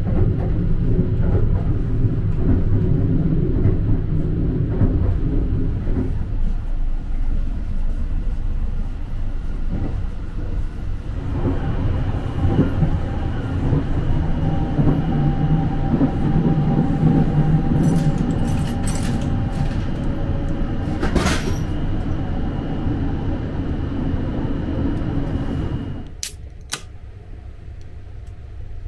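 Running noise of the Sunrise Izumo sleeper train (a 285 series electric multiple unit) heard from inside the carriage: a loud, steady low rumble from the wheels and rails, with occasional clicks and knocks. Near the end the rumble drops to a quieter level and two sharp clicks sound.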